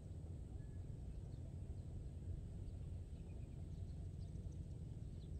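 Low, steady outdoor rumble, typical of wind on the microphone, with faint scattered bird chirps that come more often in the second half.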